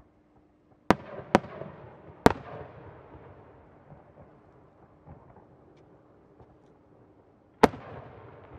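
Aerial firework shells bursting: three sharp bangs in quick succession about a second in, then a fourth near the end, each followed by a long rolling echo that slowly fades.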